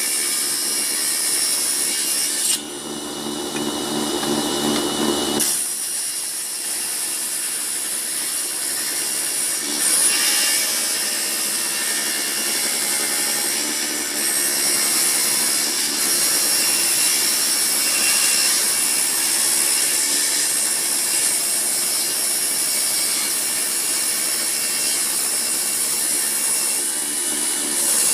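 Assembled table saw cutting old wood, a continuous high-pitched sawing noise. A few seconds in, the cutting noise drops away for about three seconds and leaves a lower, steady motor hum, then the cutting resumes.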